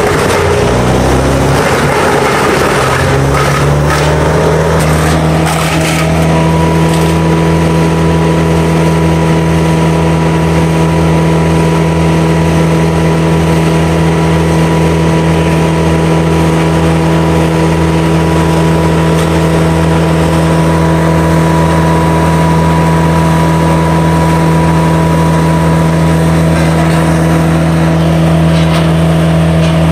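Big wood chipper's engine revving up over the first few seconds, then running steady at high speed.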